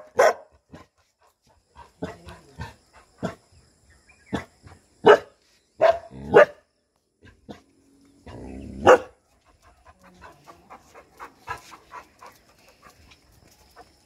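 Bhotia guard dogs (Himalayan sheepdogs) barking in loud, separate barks: one right at the start, a cluster about five to six and a half seconds in, and another near nine seconds, with fainter barks between. These are alarm barks at a stranger passing below.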